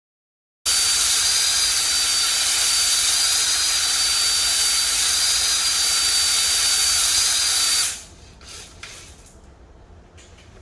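A pressurised jet hissing loudly and steadily with a thin high whistle in it, starting abruptly under a second in and stopping about eight seconds in, followed by a few faint knocks.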